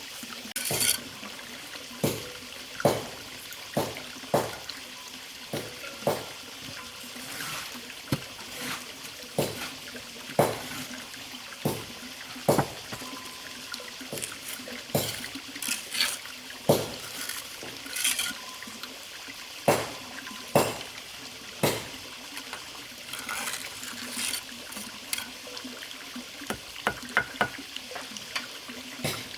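Water splashing and sloshing in short, irregular strokes, roughly one a second, over a steady background hiss.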